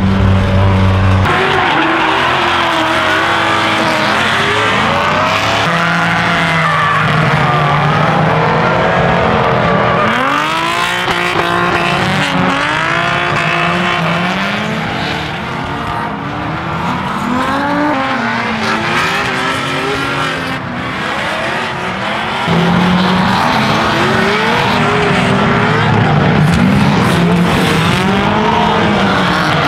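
Several drift cars running together, their engines revving up and falling back over and over, with tyres squealing as they slide.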